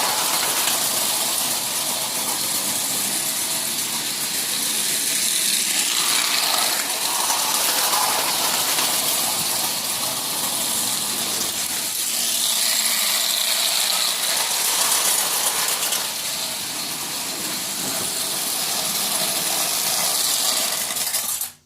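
Prewar Marx Canadian Pacific tinplate electric toy train running around an O gauge track loop, a steady rattling whir of motor and wheels on the metal rails that swells and fades a little as it circles. It cuts off abruptly near the end.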